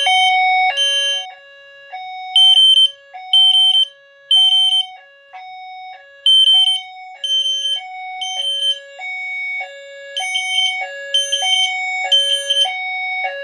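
System Sensor fire alarm horn strobes sounding their 3000 Hz tone in the temporal-three evacuation pattern: three short high beeps, a pause, repeating. They sound like smoke alarms. Under them runs a continuous two-note high-low alarm tone.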